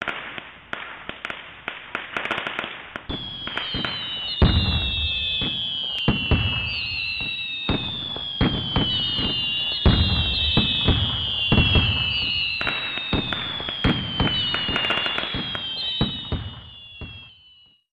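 Fireworks sound effect: dense crackling with several heavy low booms and repeated falling whistles, fading out near the end.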